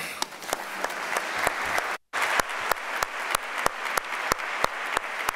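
Audience applauding, with sharp individual claps standing out at a steady pace; the sound drops out completely for a moment about two seconds in.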